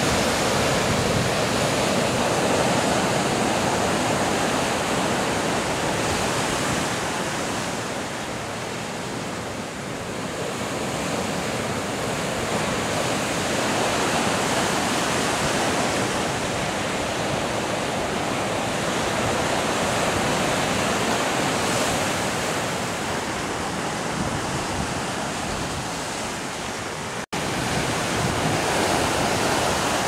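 Caribbean Sea surf breaking and washing over a rocky shore: a steady dense rush that swells and eases as the breakers come in. The sound cuts out for an instant a few seconds before the end.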